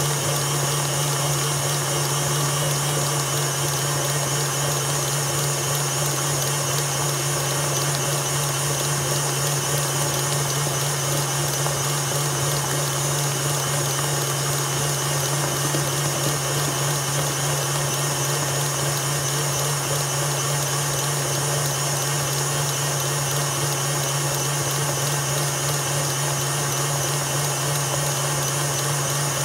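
Electric stand mixer running steadily, its beater whipping a creamed butter, sugar and cream cheese batter in a stainless steel bowl, with a constant low motor hum.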